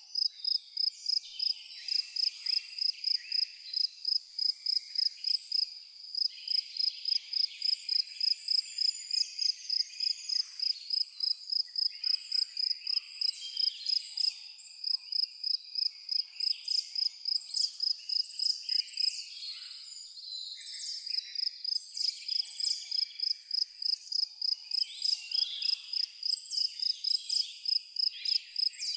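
Cricket-like insect chirping in a steady, even high-pitched pulse, about two or three chirps a second, with other scattered chirps and trills of night creatures around it.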